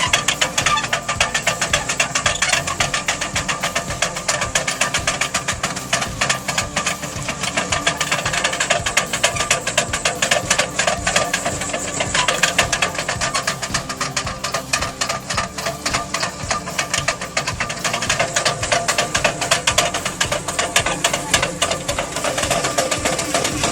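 Machinery running with a fast, steady clatter, with background music under it.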